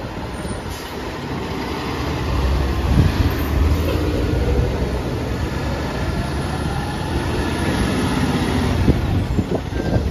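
Diesel engines of a fire engine and then a ladder truck rumbling as they drive past one after the other, the deep rumble swelling twice as each goes by.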